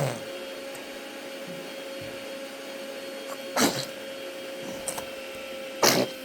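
A baby sneezing twice, two short sharp sneezes about two seconds apart, over a steady background hum with a constant tone.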